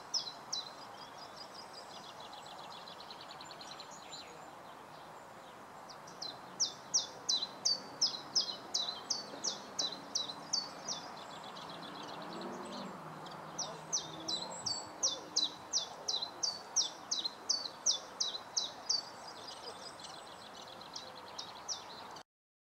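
A songbird singing in long runs of short, high, down-slurred notes, about three a second, with a brief rapid trill a couple of seconds in, over a steady distant rumble.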